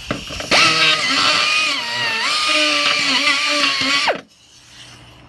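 Rotary grinder with a burr bit spinning up to a high whine, gouging flotation foam and corroded metal out of an aluminum boat hull. The pitch sags twice as the bit bites, and it spins down and stops a little after four seconds in.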